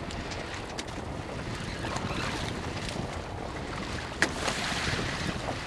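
Wind buffeting the microphone over open sea, a steady low rumble with water noise beneath it, and one sharp click about four seconds in.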